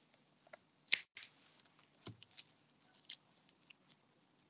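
Scattered faint clicks and ticks in a small room, the loudest about a second in, with a light knock about two seconds in.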